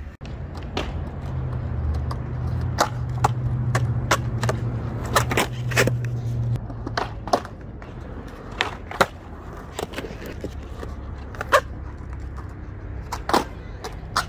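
Skateboard rolling on smooth concrete: a steady low wheel rumble, heaviest through the first half, with frequent sharp clicks and clacks from the board.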